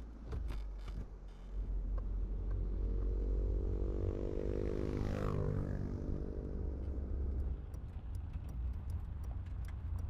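A motor vehicle drives past with a low engine rumble, its pitch bending downward as it goes by about halfway through.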